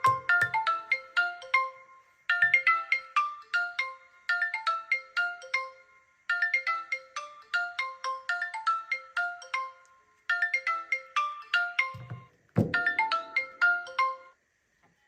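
Smartphone incoming-call ringtone: a short, bright, plucked marimba-like melody repeating in phrases about every four seconds, with a couple of low thumps near the end before it stops.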